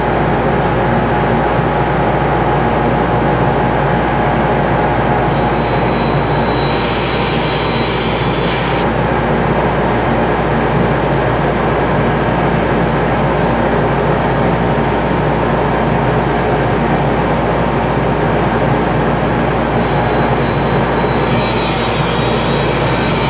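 Table saw with a high-tooth-count crosscut blade running steadily, crosscutting cherry boards to length: the blade bites into the wood twice, adding a brighter hiss about five seconds in and again near the end.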